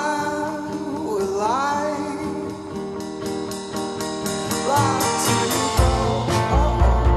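Background song: a voice singing a gliding melody over guitar and a steady beat, with a heavier bass beat coming in near the end.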